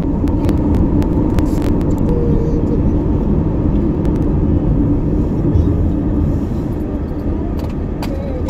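Steady low rumble of road and engine noise heard inside a moving car's cabin at highway speed.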